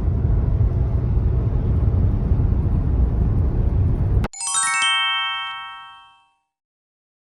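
Steady low rumble of vehicle road noise cuts off abruptly about four seconds in. A quick rising run of bright chime notes, a sparkle sound effect, follows and rings out, fading over about two seconds.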